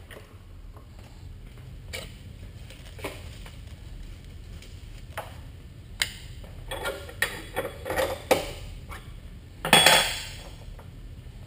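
Metal clinks and knocks as steel parts are handled on a milling machine's vise and table: single taps at first, a quick run of clinks past the middle, and a louder, ringing metal clank near the end.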